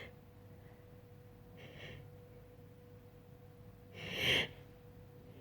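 A person's sharp breaths drawn in as a sneeze builds: a faint one about two seconds in and a louder one about four seconds in. A faint steady tone runs underneath.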